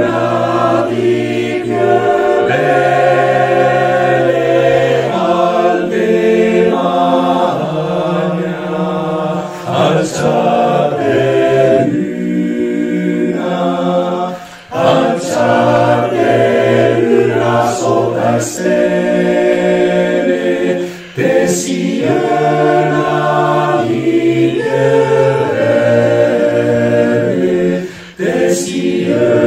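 Male choir singing a cappella in several parts, holding full chords over a low bass line. The phrases are long, with brief breaks for breath between them.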